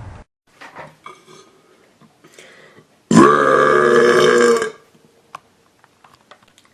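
One long, loud burp from a man, starting about three seconds in and held at a steady pitch for about a second and a half, after a few faint small sounds.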